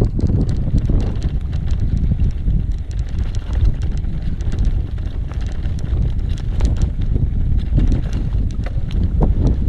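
Wind buffeting the microphone during an e-bike ride on a dirt trail: a steady low rumble, with scattered small clicks and rattles from the bike over rough ground.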